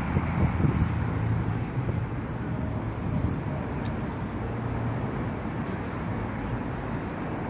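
Street ambience dominated by a steady low rumble of road traffic, a little louder in the first couple of seconds.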